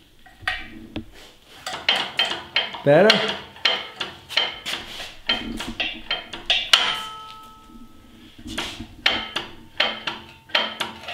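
Irregular metallic clicks and clanks of hand tools working on steel lift parts, two or three a second. About seven seconds in, one clank rings on briefly.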